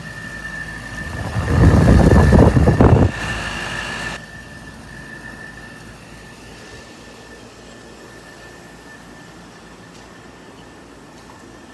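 Air conditioner running with a steady high whine. About a second in, a loud rush of air or wind noise comes in for about two seconds, then fades, and the unit runs on more quietly.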